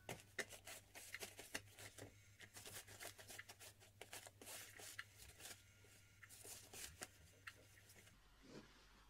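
Faint, irregular scratching and rustling: a cat pawing and clawing at a fabric-covered motorised toy on a mini trampoline, the sound sped up to double speed.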